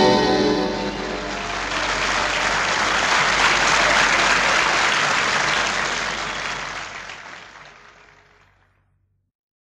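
The last chord of a tango recording dies away, then an audience applauds. The applause swells and fades out to silence near the end.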